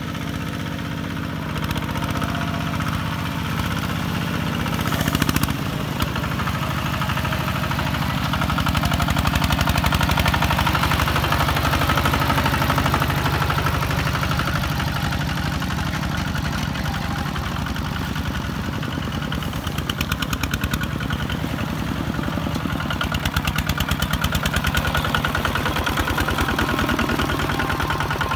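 Kubota ZT155 single-cylinder diesel engine of a two-wheel walking tractor running with a fast, even firing beat as it hauls a loaded trailer through deep mud. It grows louder a few times.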